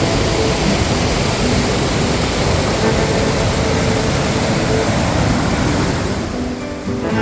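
Waterfall running high with spring runoff: a loud, steady rush of falling water. The rush fades near the end as acoustic guitar music comes in.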